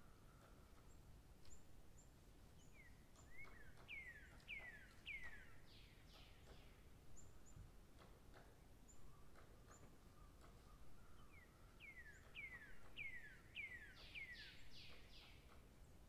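A songbird singing faintly: two phrases of quick down-slurred whistled notes, one about three seconds in and another about twelve seconds in, with faint high chips between them.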